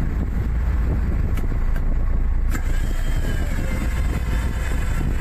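Steady low rumble of a ship under way on a river, its engine running, with two faint clicks about one and a half and two and a half seconds in.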